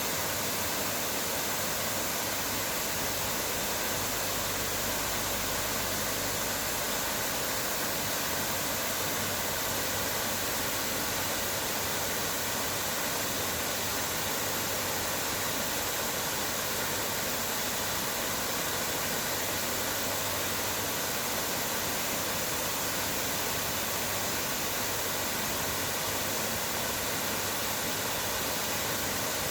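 Steady, unbroken rush of flowing water, such as a stream or small waterfall.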